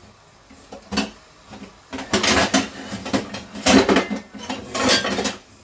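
Stainless-steel cookware clattering as a pot lid is got out from among other pans: one knock about a second in, then a run of metal clanks and rattles for about three seconds.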